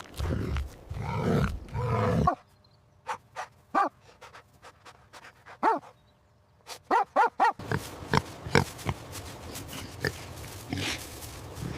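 Recorded animal calls: a dense low grunting for the first two seconds that stops abruptly, then short separate pitched calls, including a quick run of four around the middle.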